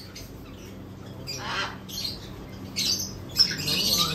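Macaws squawking: a harsh squawk about a second and a half in, then several more near the end.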